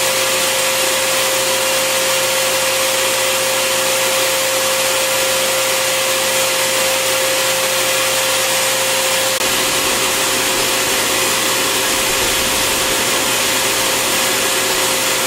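Bissell Garage Pro wet/dry vacuum running in blower mode: a steady rush of air with a steady whine from the motor.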